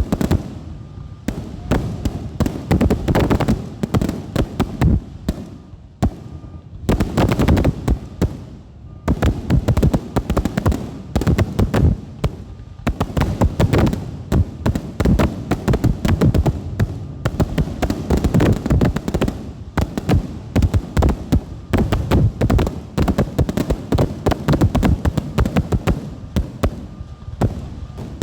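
Fireworks going off in rapid succession: dense popping and crackling bangs, many a second, with a few short lulls.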